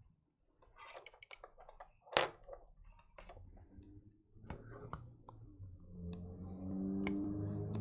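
Scattered light clicks and taps from handling the console's board and small parts, with one sharper click about two seconds in.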